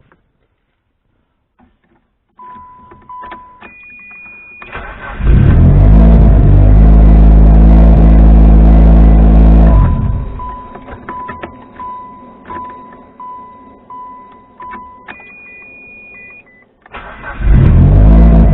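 Mitsubishi Lancer Evolution IX's 4G63 engine cranking on the starter for about five seconds, then stopping, and cranking again near the end: a test start after a makeshift fix to a faulty ignition switch. Between the two attempts a car's warning chime beeps repeatedly.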